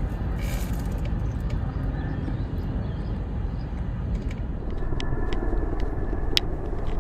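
Steady low rumble of outdoor city ambience, from traffic and wind. From about five seconds in, a scatter of sharp clicks sits over the rumble.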